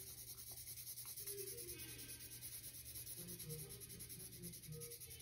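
Pink Crayola colored pencil shading on drawing paper: faint, quick, repeated strokes in one direction as an area is filled in with colour.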